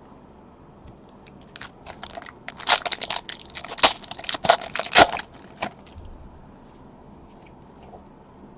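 Foil wrapper of a trading card pack crinkling and tearing as it is ripped open: a rapid run of sharp crackles starting about a second and a half in and stopping near the middle.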